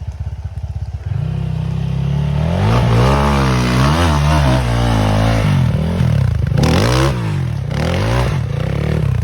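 Four-stroke enduro motorcycle engine running with an even pulsing idle, then throttled up about a second in and revved up and down repeatedly. A short, loud, rough noise comes about seven seconds in.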